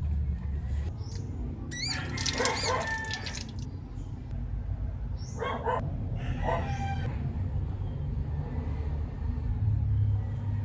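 A rooster crowing: one long crow about two seconds in, then two short calls a few seconds later, over a steady low hum.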